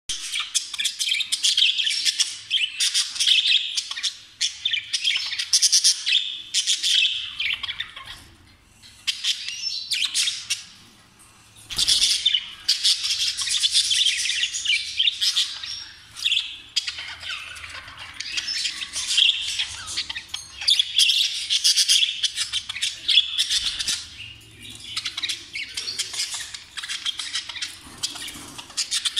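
A group of jumbo budgerigars chattering and warbling: a dense, continuous stream of high chirps and squawks, with short lulls about eight and eleven seconds in.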